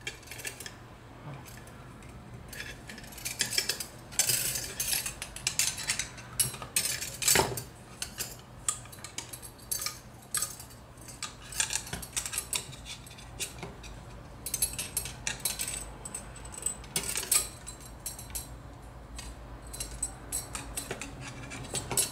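Aluminium craft wire being bent and wrapped by hand into a small loop, with irregular light clicks, scrapes and rustles as the metal wire rubs and taps against itself.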